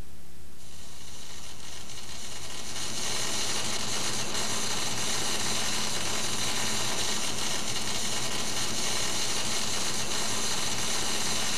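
Steady loud hiss that fades in over the first three seconds, over a low steady electrical hum.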